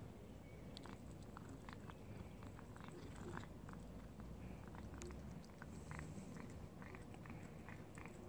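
A cat chewing and nibbling at a small piece of food held in the fingers: a string of faint, irregular little clicks.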